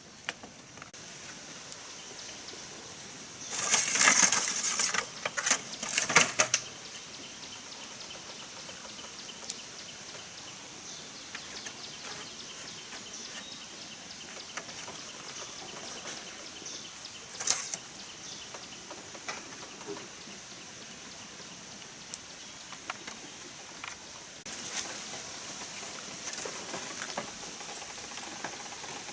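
Bamboo poles and leaves rustling and knocking as a bamboo roof frame is handled and fitted onto a bamboo shelter frame: two loud bursts of rustling a few seconds in, then scattered light clicks and a sharp knock midway, over a steady high hiss.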